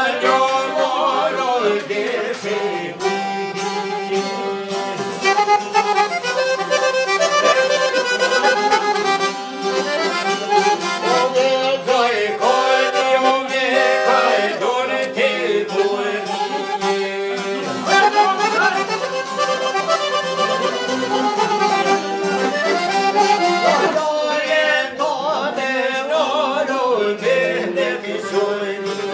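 Live folk music: an accordion playing with strummed long-necked lutes, and a man's voice singing over them.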